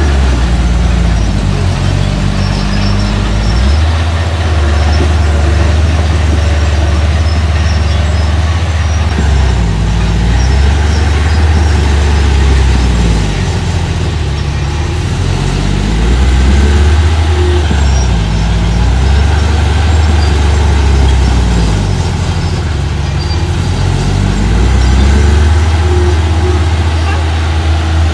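Engine of small earth-moving machinery working on a dirt and rock site, its pitch repeatedly rising and falling every few seconds as it is throttled up and eased off under load.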